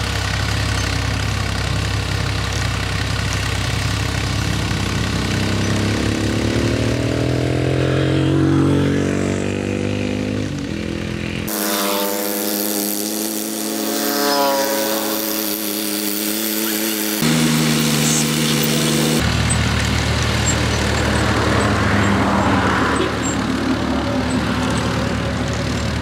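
Farm tractor's diesel engine running as it pulls a harrow and levelling plank. Its note climbs steadily for several seconds about a third of the way in, and the sound changes abruptly a few times.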